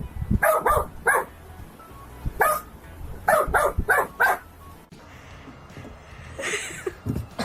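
A dog barking, a string of short barks in clusters over the first few seconds, then stopping.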